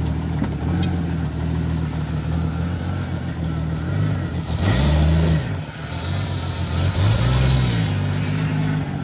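Jeep Cherokee XJ engine pulling at low speed on big mud tyres. It is revved up twice for about a second each, about halfway through and again two seconds later, its pitch rising and falling each time, as the tyres churn through leaves and mud.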